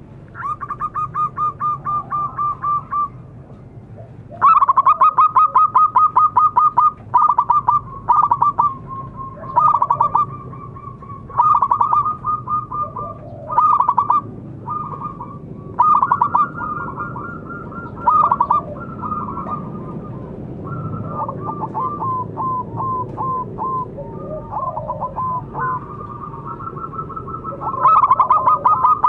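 Zebra dove (perkutut) cooing: repeated bouts of rapid, clear staccato notes, a new run starting every few seconds.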